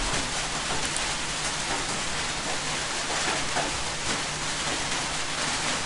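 Steady hiss of broad background noise with a faint low hum underneath.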